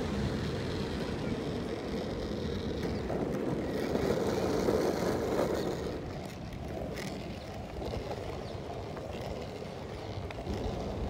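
A steady rushing noise that drops away about six seconds in, leaving the low, even rumble of longboard wheels rolling over asphalt, with wind on the microphone.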